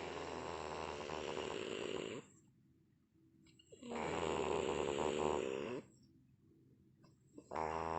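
A woman snoring in deep sleep, really loud: long pitched snores of about two seconds each, roughly every three and a half seconds, with a whining, yowling tone like a cat wanting to mate.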